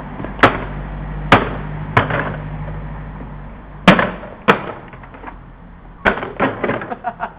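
A vacuum cleaner being kicked: a string of sharp knocks and crashes, about six spaced over several seconds, then a quick flurry near the end, over a low motor hum that slowly dies away.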